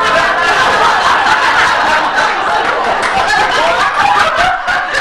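Theatre audience laughing together, loud and sustained.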